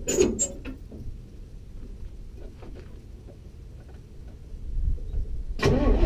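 Metallic clicks and clanks of the 1981 Jeep CJ7's driver door being opened, then near the end the engine cranks briefly and fires up, settling into a steady run.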